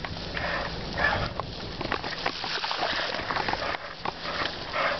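Tyres rolling through shallow puddles and mud on rough ground: irregular splashing and crunching with frequent small knocks and rattles.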